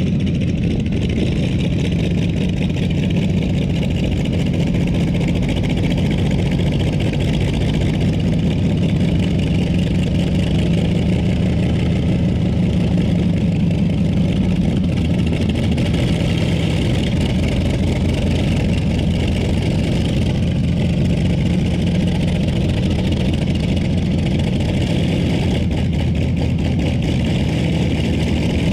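Light modified pulling tractor's engine running steadily, a loud, deep, even drone with no revving up or down.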